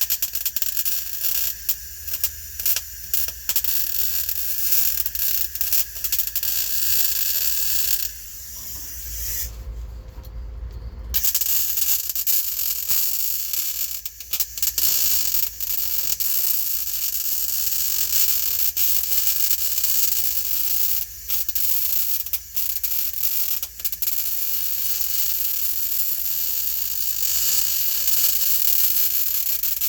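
Welding arc on thin sheet-metal floor pan, crackling and sizzling steadily as a gap is filled, with a break of about three seconds starting about eight seconds in.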